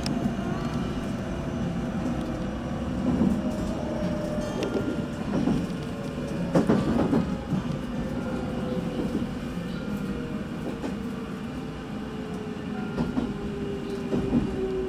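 Electric train running, heard from inside at the front of the car: a steady rumble with wheels clacking over rail joints and points several times, and a motor whine that slowly falls in pitch as the train slows toward a station.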